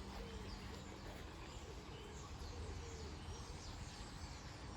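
Faint small birds chirping over a low steady background hum.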